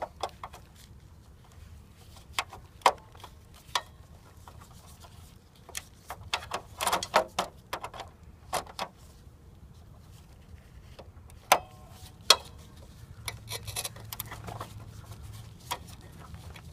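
Scattered metallic clicks, scrapes and knocks of a hand tool working the small bolts that hold a CRT television's glass screen to its plastic shell. A denser run of clicks comes about seven seconds in, and two sharp knocks come a little before and after twelve seconds.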